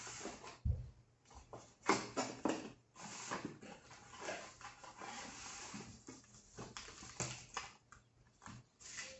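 Cardboard packaging of a Magic: The Gathering prerelease box being handled: a light thump under a second in, then a long scraping slide from about 3 to 6 seconds as the printed cardboard sleeve comes off the deck box, with rustling and taps of the lid opening and cards and packs being pulled out.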